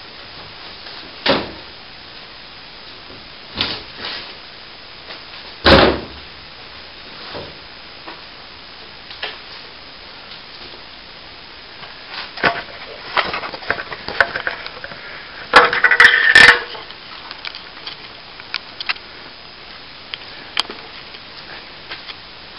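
Scattered knocks and crunching of broken plasterboard and ceiling debris being handled, a few single knocks first, then a busier burst of crunching and rattling past the middle, over a steady hiss.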